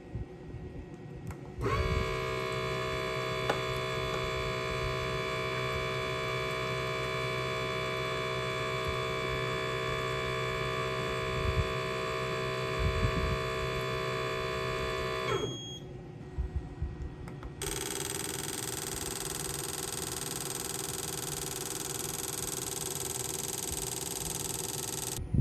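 A machine's steady hum made of several fixed tones, running about 14 seconds and stopping. A second steady hum with a different pitch starts about two seconds later and runs to near the end.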